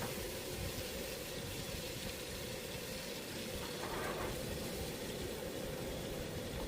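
Bacon sizzling in a frying pan over high heat: a steady hiss with a low steady hum underneath and a brief brighter flare about four seconds in.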